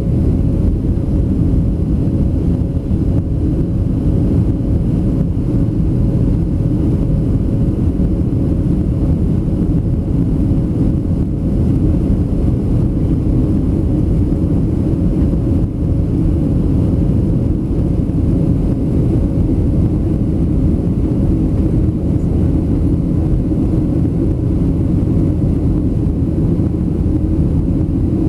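Steady cabin noise of a Boeing 737-700 in flight, heard from a window seat over the wing: the low rumble of airflow and its CFM56 turbofan engines, with a faint steady hum on top.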